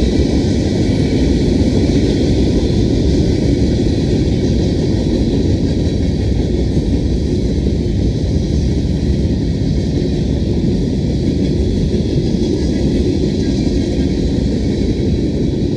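Freight train rolling past, a steady rumble of wheels on rails.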